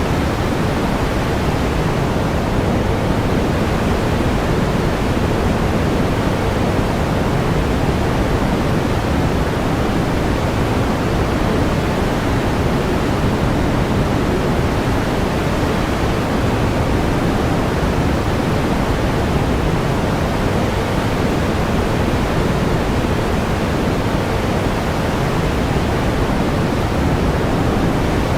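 Steady pink noise: an even, unchanging hiss weighted toward the low end, with no events.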